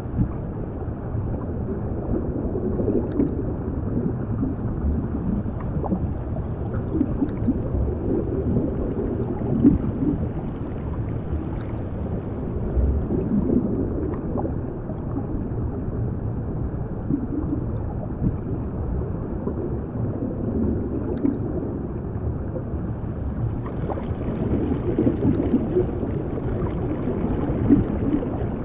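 Underwater ambience: a muffled, low rush of water with bubbling gurgles that swell and fade every few seconds.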